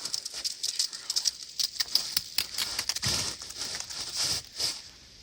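Crunching and rustling of footsteps and clothing on the move, a quick run of small crackles, fuller for a couple of seconds past the middle.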